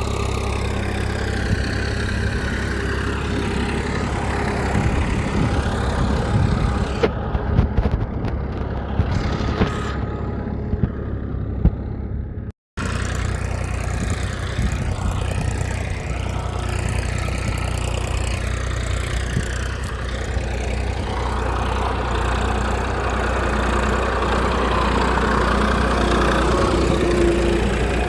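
Steady mechanical running hum like an idling engine, with a brief cut-out about halfway through.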